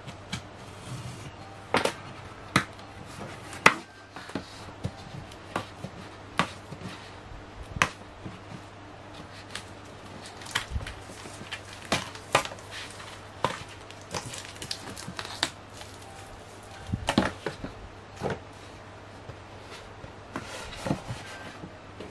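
Cardboard box and paper inserts of a tempered-glass screen protector being opened and handled by hand: irregular sharp taps, clicks and scrapes of card, with the loudest knocks about two, four and seventeen seconds in. A faint low hum runs underneath.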